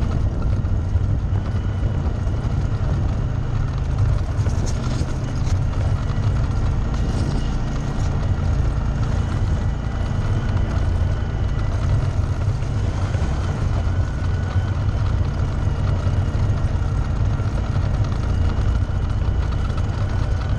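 ATV engine running steadily at riding speed as a low, even rumble, heard from on board the machine.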